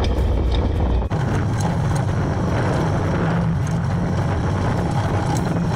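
Quad bike engine running under way on a dirt track, a steady hum under rough road noise. The sound changes abruptly about a second in, from a deep rumble to a higher, steadier hum.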